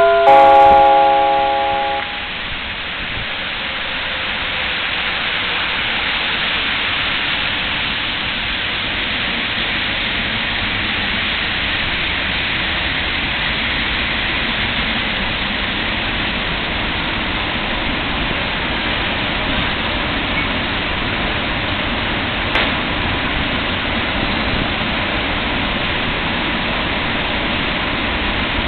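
A train horn sounds a chord of several tones for about two seconds. Then the EU07 electric locomotive and its TLK carriages roll in along the platform with a steady rumble of wheels on rail that builds over a few seconds and holds. A single sharp click comes near the end.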